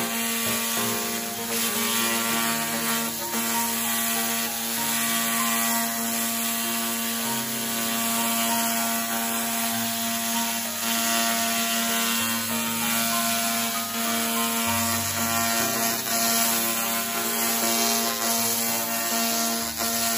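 Handheld fiber laser cleaning head ablating rust from a steel plate: a steady hiss with a fine crackle as the beam sweeps the surface.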